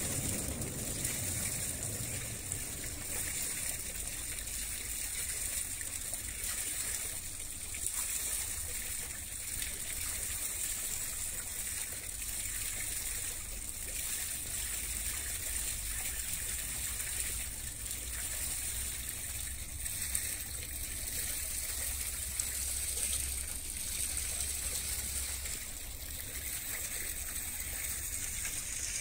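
Steady close water sounds, lapping and trickling, with a low rumble underneath.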